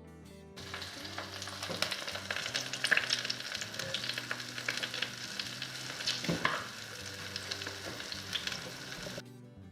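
Food frying in hot oil in a pan, sizzling, with the clicks and scrapes of stirring. It starts about half a second in and stops shortly before the end.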